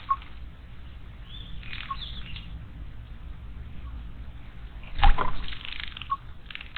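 Small wild birds chirping at a garden stone water basin, with water dripping into the basin about every two seconds. About five seconds in comes a short, loud flurry of wingbeats and splashing, typical of a bird bathing in the basin.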